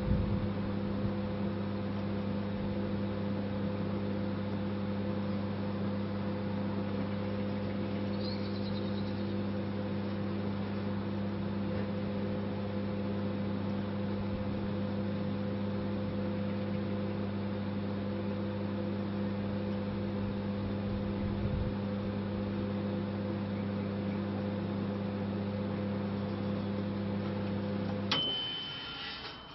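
Microwave oven running with a steady hum. Near the end the hum cuts off with a click and the oven beeps once, a long high tone marking the end of the cycle.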